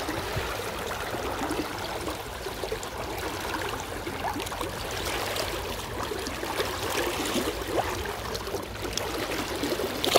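River water flowing over stones, a steady rush with many small gurgles and bubbling notes.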